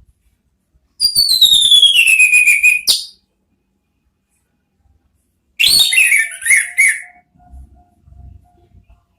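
Orange-headed thrush whistling two phrases. About a second in comes a long clear whistle gliding steadily downward. After a pause comes a shorter, warbling phrase.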